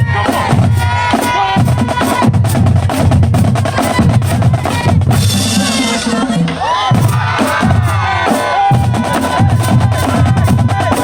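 Two combined high school marching drumlines playing a fast cadence on snare drums and bass drums, with dense rapid strokes over a steady low drum pulse.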